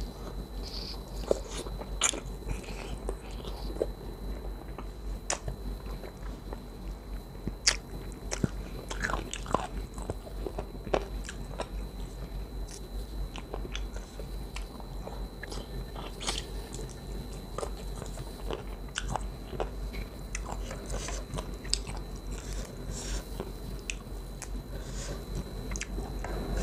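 Close chewing and biting of chicken feet and chicken carcass pieces in coconut curry, picked up on a clip-on mic: wet mouth sounds with irregular sharp crackling clicks as cartilage and bone are crunched. A faint steady high whine sits underneath.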